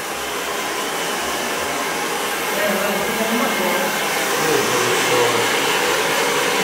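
Hair dryer blowing steadily, drying a freshly bathed dog's wet fur.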